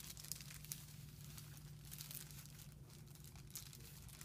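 Paper wrapping of a sterile supply package crinkling as it is unfolded and flattened by hand, faint, with a couple of sharper crackles about half a second in.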